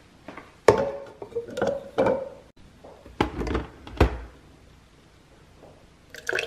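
A stainless-steel tumbler and cups being handled and set down on a countertop: a handful of clunks and light clinks, some ringing briefly. Near the end, hot coffee starts pouring from a glass carafe into the metal tumbler.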